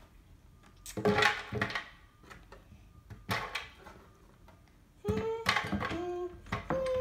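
Knife and fruit knocking on a wooden cutting board, with pieces of fruit dropped into an empty plastic Vitamix blender jar: a few sharp knocks in the first half. From about five seconds in, a child's voice hums in short held notes.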